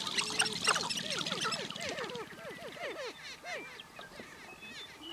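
Several male sharp-tailed grouse calling as they dance on a lek: a chorus of short clucking, cackling notes, with a quick run of hooked calls in the middle. A fast rattle runs under the calls for the first couple of seconds and then fades out.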